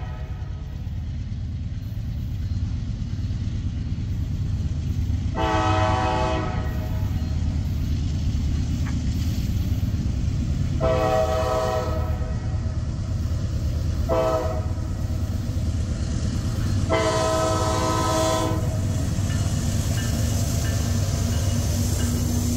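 Norfolk Southern diesel freight locomotive sounding its multi-chime air horn in the grade-crossing pattern: long, long, short, long. Under it runs the steady rumble of the approaching diesel engines, which grows as the lead unit reaches the crossing near the end.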